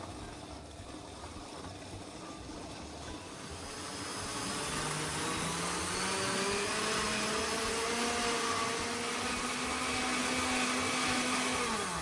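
Countertop glass-jar blender running, puréeing tomatoes, red pepper and celery with olive oil into a smooth gazpacho. It grows louder about four seconds in, its motor pitch climbs slowly, and near the end it winds down as it is switched off.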